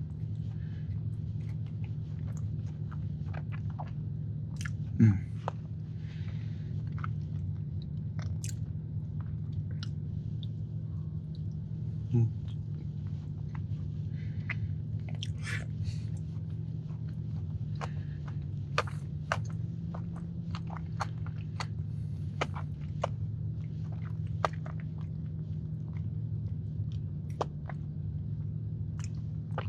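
A person chewing and biting a soft chilled cookie close to the microphone, with scattered small wet clicks, over a steady low hum. Two brief louder sounds stand out, about five seconds in and again about twelve seconds in.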